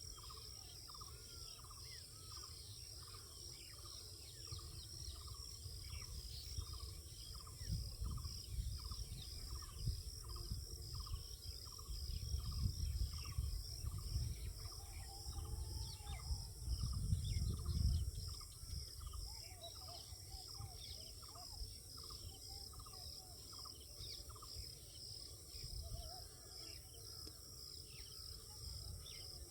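Insects, crickets by the sound of it, chirping in a steady pulsing chorus, with a lower chirp repeated about twice a second through the first half. Low rumbling swells in the middle and dies away.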